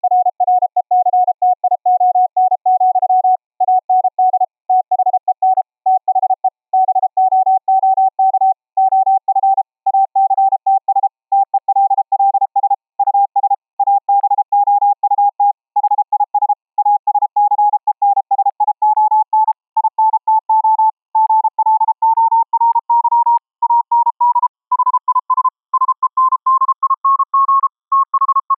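Morse code (CW) tone keyed on and off, a pure sine with soft raised-cosine edges from a software-defined-radio bandpass filter and mixer fed by a keyed 655 Hz square wave. Its pitch climbs slowly and steadily higher as the mixer frequency is turned up.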